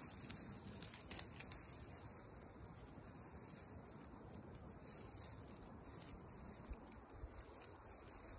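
Dry sticks and dead grass rustling and crackling as they are handled and pushed into place by hand. There are a couple of sharper snaps just after a second in.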